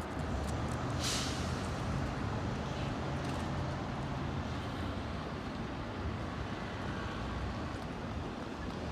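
Diesel-electric hybrid transit bus running with a steady low engine hum, with a short burst of air hiss, typical of air brakes, about a second in.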